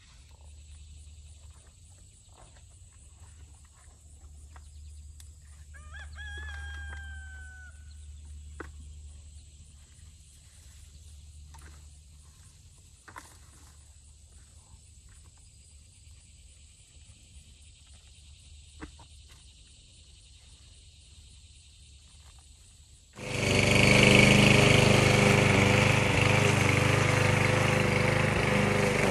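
A rooster crows once about six seconds in, among faint scattered clicks. Near the end, a walk-behind gasoline lawn mower suddenly cuts in, running loudly and steadily.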